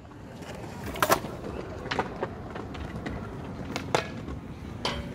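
Skateboard wheels rolling on concrete, with a few sharp wooden clacks as the board pops and strikes a low metal flat rail during a boardslide attempt.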